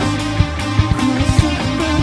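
Rock band playing live: electric guitar and bass guitar over a steady pulse of drum hits.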